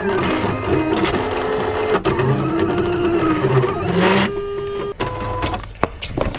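Desktop vinyl cutting machine cutting vinyl lettering: its motors whir with a whine that rises and falls as the blade carriage moves, with scattered clicks. About four seconds in the whine settles to a steady tone, then it stops near the end.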